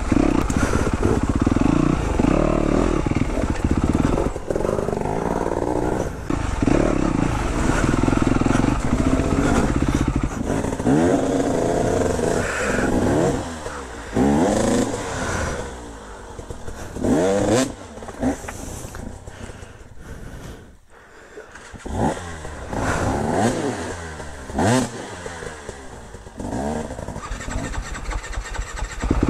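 Yamaha YZ250F single-cylinder four-stroke dirt bike engine under way at low speed, its revs rising and falling in repeated throttle blips. It drops to a low, quiet idle about twenty seconds in, then picks up again.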